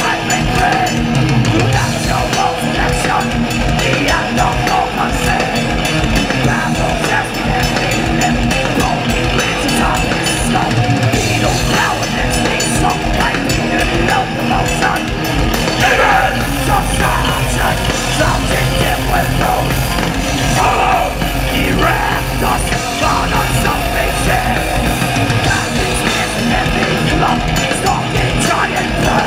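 Thrash metal band playing live: distorted electric guitars, bass and drum kit at full volume, with shouted vocals over them.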